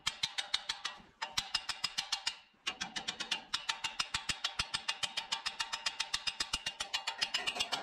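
Small wooden mallet tapping rapidly and lightly, several taps a second, to drive an oil dipstick tube into the engine block, with two brief pauses near the start.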